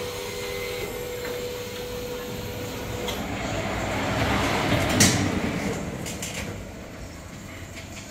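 Sankon automatic fabric spreading machine running: a steady motor whine for the first few seconds, then a rushing mechanical noise that swells to a peak with a sharp clack about five seconds in and fades away.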